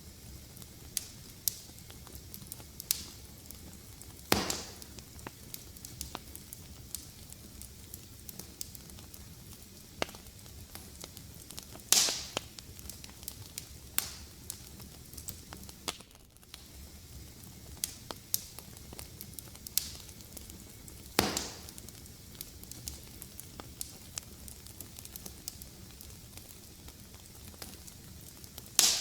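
Fireplace fire crackling: a steady low hiss broken by frequent small ticks and snaps, with four loud pops about 4, 12, 21 and 29 seconds in.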